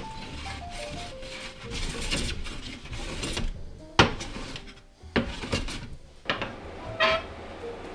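Hand plane shaving across a wooden board in rasping strokes, then several sharp knocks of the tool on the board and bench from about four seconds in. Soft background music plays underneath.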